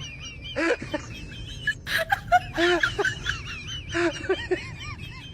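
A bird calling: a quick, wavering high trill with short, repeated lower calls.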